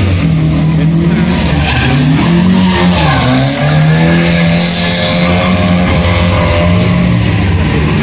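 Opel Manta A 1900's 1.9-litre four-cylinder engine revving hard as the car drifts, with its tyres squealing and skidding on the asphalt. The revs dip and climb back about three seconds in.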